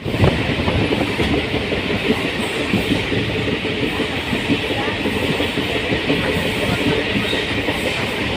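Train running along the track, with a steady rumble and the rattle of wheels over the rails.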